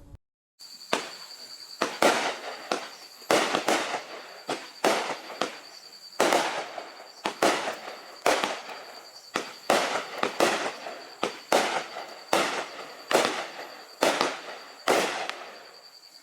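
Consumer fireworks going off in a fast series of bangs, about one or two a second, each report trailed by crackling.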